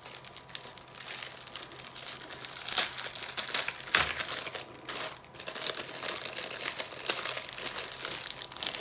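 Clear plastic film packaging crinkling and crackling as hands unwrap a rolled diamond painting canvas, with a couple of louder crackles about three and four seconds in.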